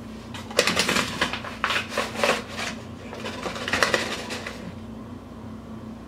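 Paper flour bag crinkling and rustling in a run of bursts as flour is poured from it into a glass jar, from about half a second in until about four and a half seconds, over a steady low hum.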